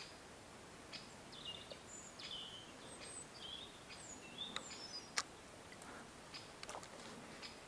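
Songbirds singing: short phrases of quick high notes that slide up and down, over a faint steady hiss. Short sharp ticks recur every second or so, and a louder single click comes about five seconds in.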